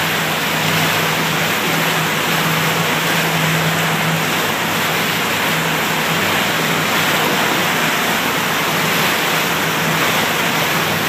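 Motorboat under way at steady speed: the engine's steady low drone beneath a loud, even rush of churning wake water.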